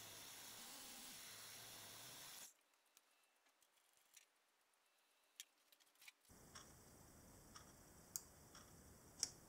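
Milling machine running with a steady low hiss while its end mill machines the top of a crank web to final size; the sound cuts off abruptly about two and a half seconds in. Then near silence, followed by a few sharp ticks as a micrometer is handled and closed on the part.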